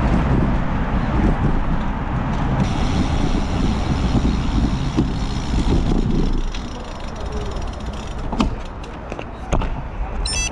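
Wind and road noise rumbling on a handlebar-mounted camera while a road bike rides along a street with car traffic. About two-thirds of the way in it drops to quieter, slow riding with a few sharp clicks as the bike rolls to a stop.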